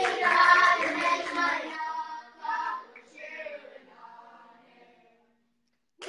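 Boys' choir singing, the voices thinning through a last phrase and dying away to silence about five seconds in as the song ends.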